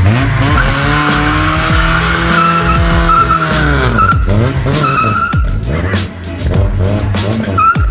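Volkswagen Golf Mk1 doing a burnout: the engine is revved hard and held while the front tyres squeal. About four seconds in the revs drop and the car pulls away, with one short squeal near the end.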